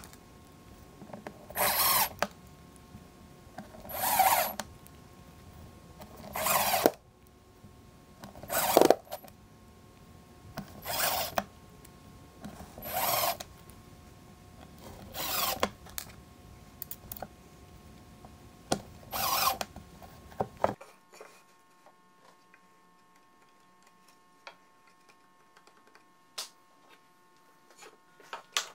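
DeWalt cordless drill driving small screws through a brass piano hinge into wood: about eight short runs of the motor, one every two seconds or so. About two-thirds of the way through it stops, leaving only a few faint clicks.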